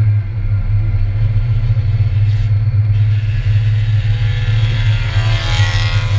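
Mazda Miata race car heard from inside the cabin at speed: a steady, loud low engine and road drone, with a broad hissing noise that swells about five seconds in.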